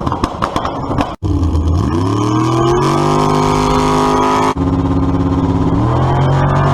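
An engine revving: its pitch climbs sharply about a second and a half in and again near the end, holding steady at high revs in between, with abrupt cuts where the clips join.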